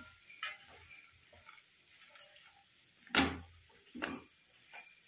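Spatula stirring and scraping sprouted moong and chana in a stainless steel pan: scattered short scrapes, the loudest a little past three seconds in with another about a second later.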